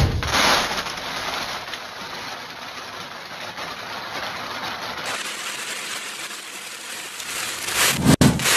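A bead-filled balloon pops with a sharp bang at the start, followed by a steady noisy hiss. A second burst comes near the end.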